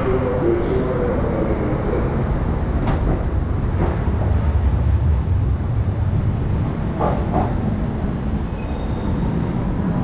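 A train running, heard as a steady low rumble that swells around the middle and eases toward the end, with a few short sharp clicks.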